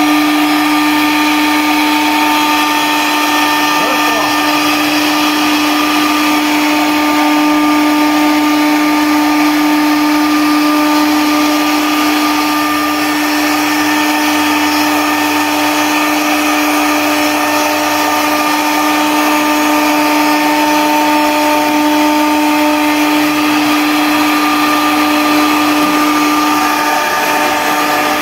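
CNC router spindle running steadily while milling a hardwood cutting board: a loud, steady whine over the hiss of the bit cutting wood.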